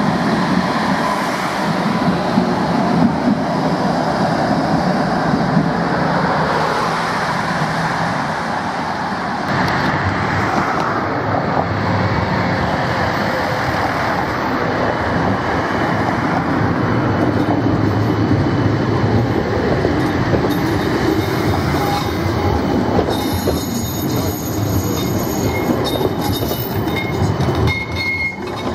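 Trams rolling past on street track: a coupled pair of Tatra trams, then a long CAF Urbos low-floor tram, making a steady dense rumble of wheels on rail. Thin, high, steady tones join in about three-quarters of the way through, as the CAF Urbos goes by.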